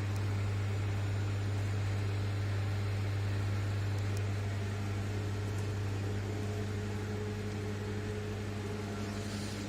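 Steady low electrical hum of running plant-room electrical equipment (switchgear panels and motors), with a few fainter higher overtones above the main tone.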